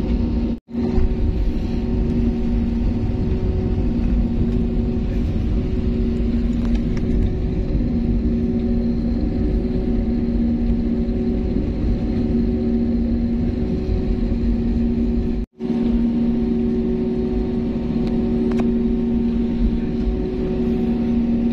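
Jet airliner cabin noise while taxiing: the engines run with a steady hum of two droning tones over a low rumble. The sound drops out for an instant twice, about half a second in and about fifteen seconds in.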